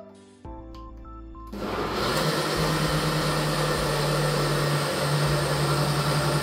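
Ninja countertop blender switching on about a second and a half in and running steadily at high speed, grinding soaked corn kernels and water into a smooth slurry.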